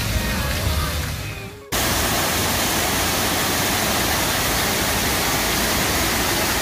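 Background music fades out over the first second and a half. Then a sudden cut brings in a loud, steady rushing hiss.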